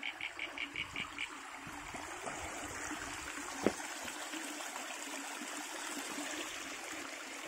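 Creek water trickling and gurgling over rocks, a steady hiss. A rapid pulsing call of about six pulses a second stops about a second in, and there is a single knock about three and a half seconds in.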